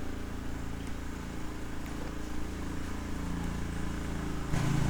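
A steady low, engine-like hum that gets louder near the end.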